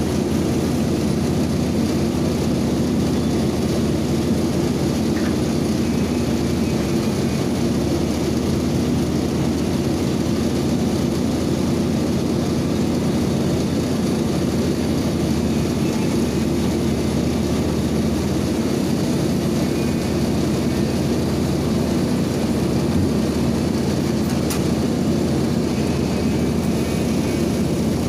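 Komatsu PC300 hydraulic excavator's diesel engine running at a steady drone under load while the machine carries and lowers a heavy precast concrete wall segment on a chain from its bucket.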